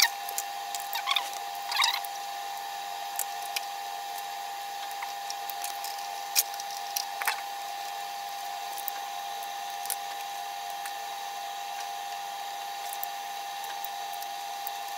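Soldering work on an electric fan's broken capacitor wire: small clicks and taps of the wire and iron being handled, over a steady high-pitched whine.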